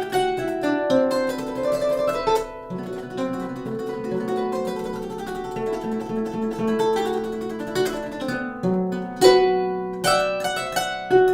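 A custom-built kora, a West African calabash harp with a skin soundboard, played solo in plucked melodic runs over bass notes. The notes ring on. The playing softens about two and a half seconds in, and a strong pluck comes near the end.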